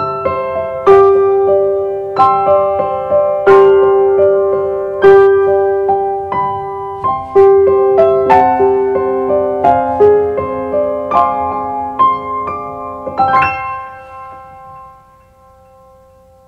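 Background piano music: a slow melody of single struck notes over held lower notes, ending on a final chord that rings and fades away.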